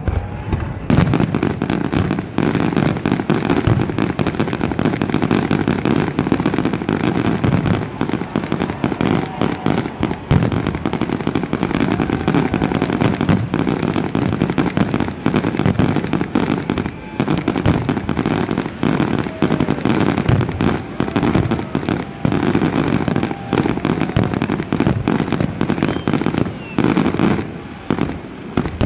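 Aerial fireworks going off in a rapid, nearly continuous barrage of bangs and crackles, with a low rumble under them.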